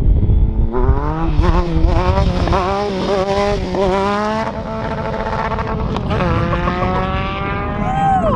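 2012 Triumph Speed Triple R's inline three-cylinder engine revving hard under acceleration, its pitch climbing in several quick steps as it goes up through the gears. After a short easing it holds a steady, slowly rising note, then drops sharply in pitch near the end as the bike goes past.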